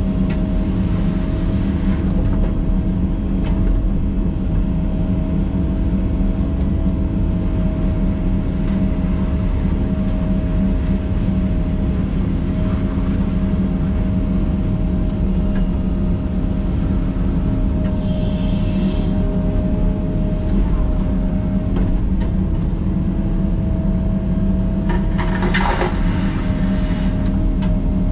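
Cat 308 excavator's diesel engine and hydraulics running steadily under work, heard from inside the cab, with a constant low drone and a steady hum above it. A brief high-pitched sound comes about two-thirds of the way in, and a short burst of noise near the end.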